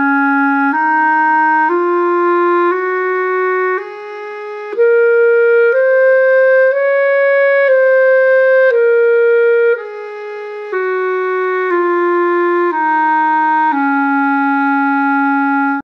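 A B-flat clarinet playing a one-octave E-flat major scale, up and back down, in fifteen even, sustained notes of about a second each. The top note is reached near the middle. Two notes, around the break, a third of the way in and again on the way down, sound a little softer.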